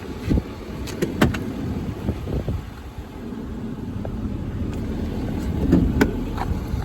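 Low rumble of wind on the microphone, with a few sharp knocks and clicks, one about a second in and another near six seconds.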